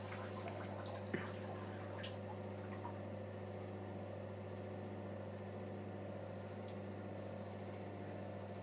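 A man urinating into a toilet: a faint trickle with scattered drips that stops about three seconds in, over a steady low hum.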